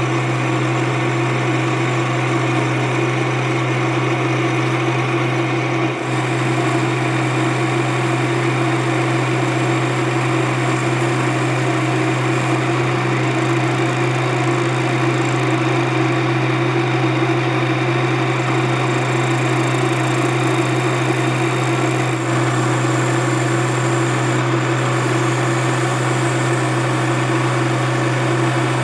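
Steady mechanical hum of a running workshop machine, unchanging throughout.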